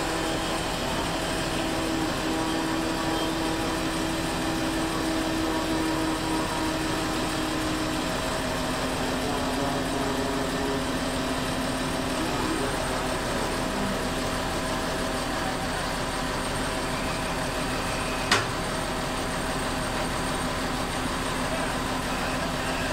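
Heavy diesel machinery engine running steadily at a constant speed as the crane holds a suspended mini excavator, with a single sharp click about eighteen seconds in.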